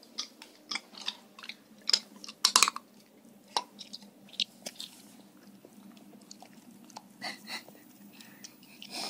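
A golden retriever cracking pistachio shells and chewing the nuts, with short sharp crunches. They come quickly over the first three seconds, loudest about two and a half seconds in, then thin out to scattered cracks with a small cluster near the end.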